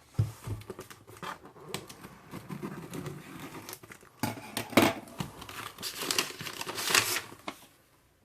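Mail-order record package being opened by hand: irregular crinkling and rustling of packaging with sharp tearing and handling noises, the loudest bursts around the middle and again near the end.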